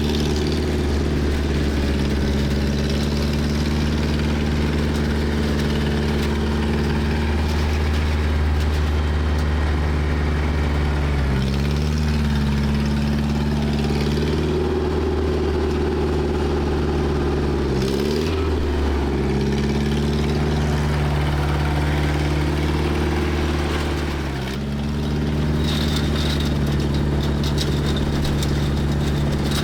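Farm tractor engine running steadily in the hay field. Its pitch dips briefly three times, then recovers.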